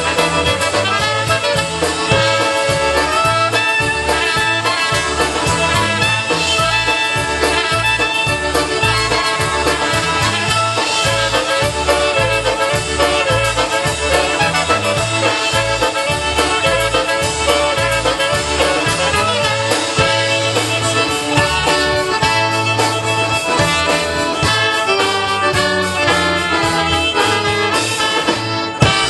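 Live polka band playing: fiddle, accordion, trumpet and clarinet over drums and a string bass, the bass steadily alternating notes on the beat.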